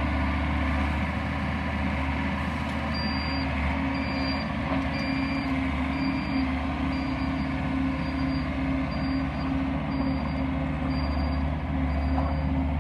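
John Deere 332 skid steer's diesel engine running steadily. From about three seconds in, its backup alarm beeps roughly once a second.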